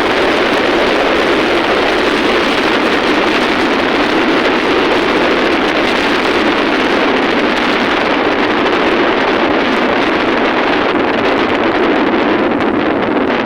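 Steady, loud rush of wind buffeting the microphone on a moving vehicle, with no distinct engine note or events standing out.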